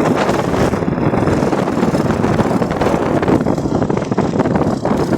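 Strong wind buffeting the microphone: a loud, steady, rumbling rush.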